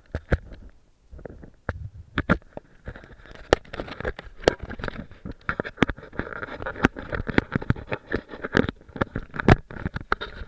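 A climber's gloved hands, boots and body scraping and knocking against rock while scrambling, close to the microphone: a rapid, irregular stream of sharp knocks and scrapes, busiest in the middle.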